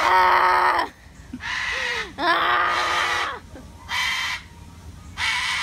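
Cockatoo screeching, a string of harsh loud calls about a second apart.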